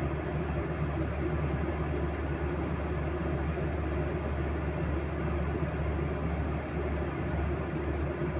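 Steady cabin drone of a Boeing 737-800 in cruise, heard from a window seat over the wing: the hum of its CFM56-7B turbofan engines under a constant rush of airflow.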